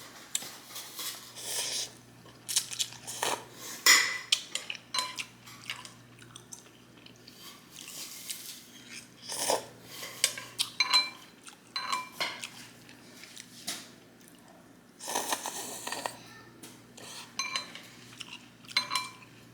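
Eating utensils clinking and scraping against a bowl of ramen noodles in irregular sharp knocks, some with a short ring. About fifteen seconds in there is a second-long rush of noise.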